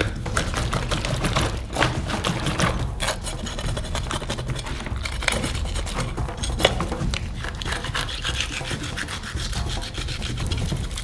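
A knife sawing and scraping through a large sturgeon head, cutting out the gills, in many uneven rasping strokes.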